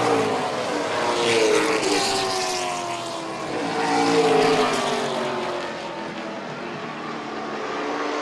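Pack of late model stock cars racing past at full throttle, several V8 engines sounding together with their pitch sliding up and down. The sound swells twice as cars go by, loudest about four seconds in.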